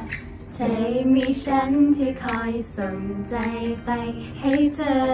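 Young women singing a song together, a melody of held notes.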